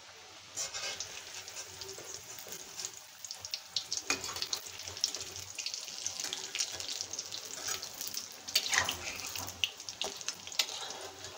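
Noodle pakoras sizzling and crackling in hot oil in a metal kadai. A metal spatula and a wire skimmer scrape and clink against the pan as the pakoras are lifted out. The sizzling starts about half a second in.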